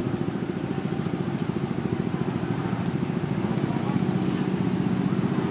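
A motor engine running steadily: a low hum with a fast, even pulse, which settles into a steadier drone about two-thirds of the way through.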